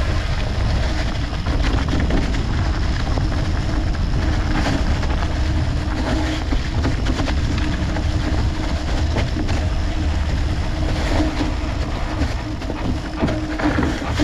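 Mountain bike riding on a leafy dirt singletrack, picked up by a camera mounted low on the bike next to the knobby front tyre: tyre rolling noise, a steady low rumble and frequent small clicks and rattles from the bike over the bumpy ground.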